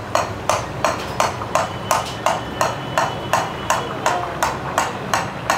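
Boondi being made: a ladle tapping steadily on a perforated metal skimmer, about three sharp knocks a second, shaking gram-flour batter through into hot ghee. Underneath, the ghee sizzles and froths as the drops fry.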